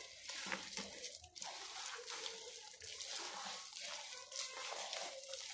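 A hand working flour into a wet, sticky yeast dough in a plastic bowl: soft, irregular mixing strokes, the dough still too wet to come together.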